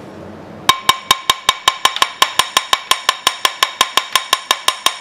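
Small ball-peen hammer tapping rapidly on the stuck pulley of a Briggs & Stratton NR6 engine's gear-reduction output shaft, about six ringing metal strikes a second, starting under a second in. It is working the pulley loose after its Allen set screws were backed out.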